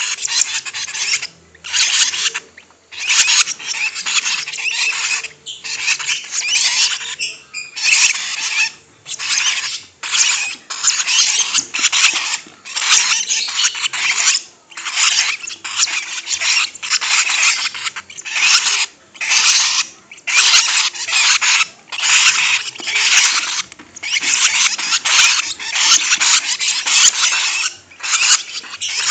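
Lovebird chattering in long, rapid, high-pitched trills, in bouts broken by short pauses every second or two.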